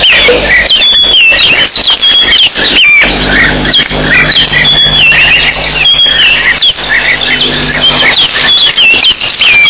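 A loud chorus of many birds calling at once: dense overlapping chattering and whistling, with short falling whistles repeated again and again.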